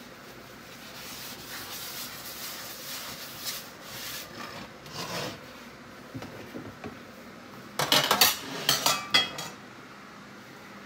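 A paper towel rubbing oil around the inside of a new cast iron skillet to season it, a soft scrubbing sound. About eight seconds in comes a rapid clatter of cookware clanks lasting about a second and a half, the loudest part.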